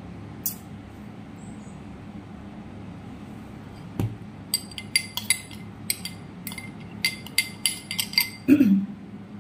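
A metal spoon clinking against a drinking glass about a dozen times over some four seconds, each strike leaving a short ring, after a single knock. Near the end a short vocal sound falling in pitch.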